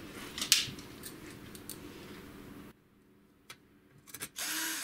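Handling clicks, with a sharp click about half a second in, then near the end a cordless drill-driver runs briefly, driving a small screw into the printer's sheet-metal frame.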